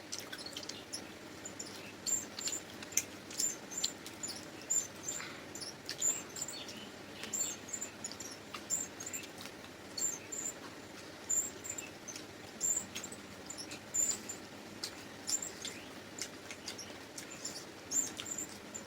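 Chewing and lip-smacking while eating luchi with chicken curry: irregular wet clicks and smacks, several a second.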